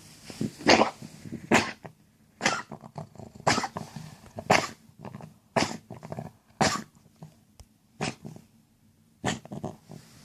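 A pet's wet, gurgling cough, repeated about once a second, with short quiet gaps between the coughs; a sign that the animal is unwell.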